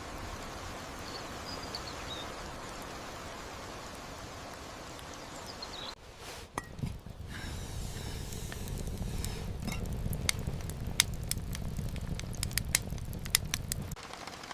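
Steady rain ambience, an even hiss with a couple of faint chirps. About six seconds in the sound changes to a low rumble with scattered sharp ticks and pops.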